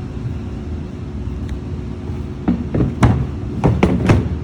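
Hard plastic parts of a cordless vacuum being handled: about five sharp clicks and knocks in the second half, over a steady low hum.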